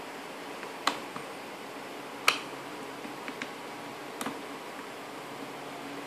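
LEGO plastic bricks clicking and knocking as the puzzle box's slider is pushed back in: a few sharp, separate clicks, the loudest a little after two seconds in, over a steady hiss.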